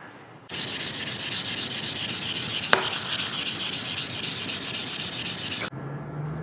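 Hand sanding a wooden speaker body with a sheet of sandpaper: rapid back-and-forth scratchy strokes for about five seconds, stopping abruptly near the end.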